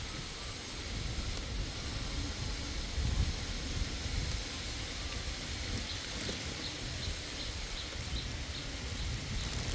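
Outdoor background noise: a steady low rumble with hiss, and a run of faint high chirps about six to eight seconds in.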